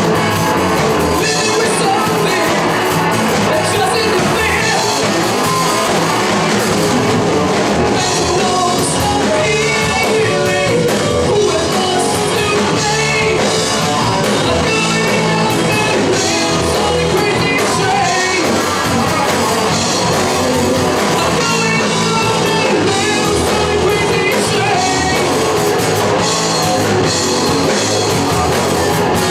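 A hard rock band playing live, with electric guitar, bass and drum kit and a singer.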